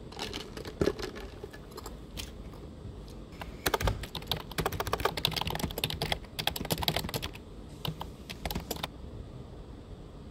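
Typing on a computer keyboard: bursts of rapid key clicks, the longest run in the middle, stopping about a second before the end.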